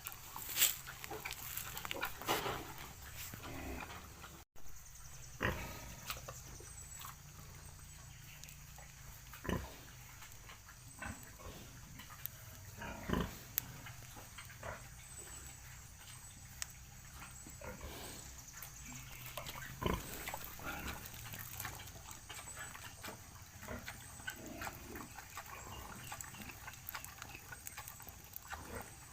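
Pig grunting now and then in short, scattered sounds, with small clicks and knocks in between.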